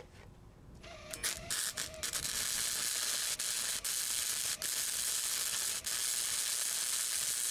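Campbell Hausfeld MIG+Flux 80 wire welder laying a bead on exhaust pipe with gasless flux-core wire at a lowered heat setting. A few short arc starts come about a second in, then the arc runs steadily for about six seconds, with a few brief breaks where it stops and restarts, and cuts off at the end.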